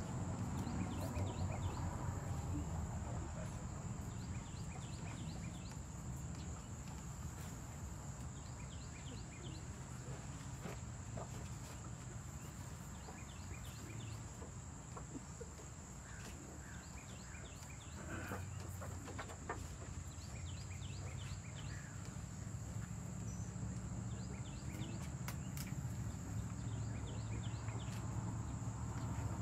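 Insects chirping in rows of short, rapid pulses, over a steady low rumble and a faint steady high whine, with a few soft clicks about two-thirds of the way in.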